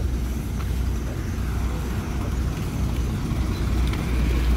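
An engine running steadily, a low continuous rumble.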